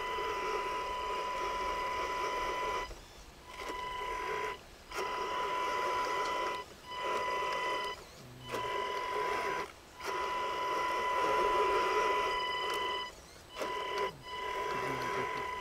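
Electric motor and gear drive of an RC scale Hummer H2 crawler whining steadily while it churns through deep mud, switching on and off in about eight bursts of one to three seconds as the throttle is applied and released.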